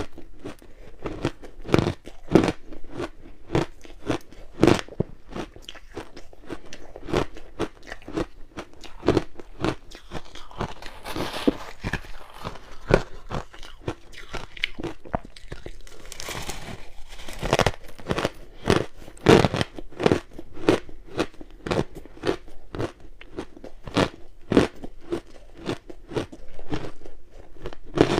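Close-miked crunching and chewing of purple-coloured ice: a steady run of sharp, irregular crunches, with grainier, rustling stretches about eleven and sixteen seconds in.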